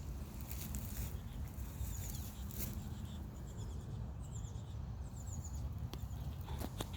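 Small birds chirping in short, high calls over a steady low wind rumble on the microphone, with a few sharp clicks near the end.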